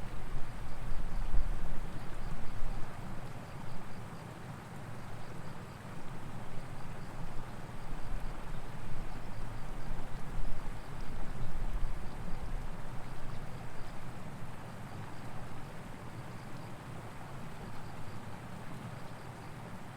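Outdoor ambience: an uneven low rumble that swells in the first few seconds and again around the middle, with a faint high chirping repeating steadily throughout.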